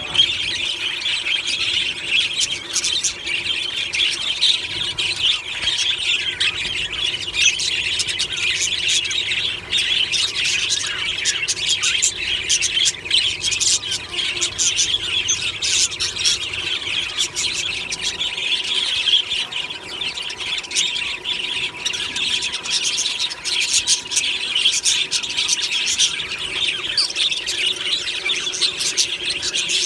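A flock of budgerigars chattering and squawking together in a dense, continuous chorus of overlapping chirps and warbles.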